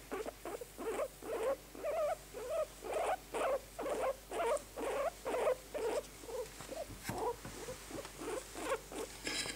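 Guinea pig squeaking over and over in short pitched calls, about two to three a second.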